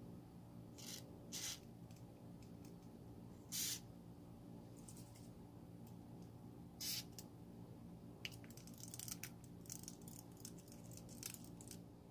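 Short hissing spurts from an aerosol lubricant can with a straw nozzle, sprayed onto a baitcasting reel's brass side plate to cure reel noise: two brief puffs near the start, then two longer, louder ones about 3.5 and 7 seconds in. A run of faint crackles and clicks follows near the end, over a faint steady hum.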